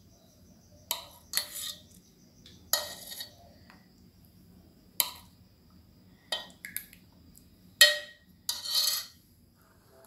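Metal ladle clinking and scraping against a steel pot and a soup bowl while soup is served, about eight separate knocks, some trailing into a brief scrape or pour.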